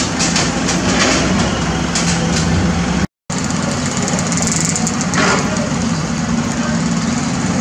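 Diesel engines running steadily: a Caterpillar 320D hydraulic excavator working and a dump truck standing by, with scattered clatter of soil and rubble in the first second or so and again around five seconds in. The sound cuts out briefly about three seconds in.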